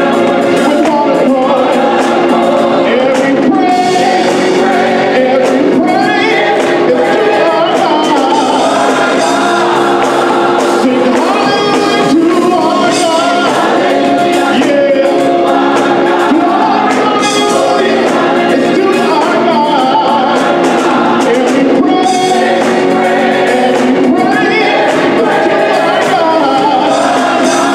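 Gospel choir singing in harmony, accompanied by a live band of electric bass, drum kit and organ.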